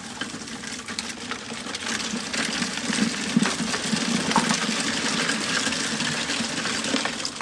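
A machine running steadily with a low hum and a dense rattling, churning noise.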